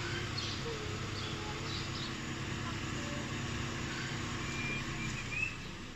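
A vehicle engine idling steadily, with birds chirping over it.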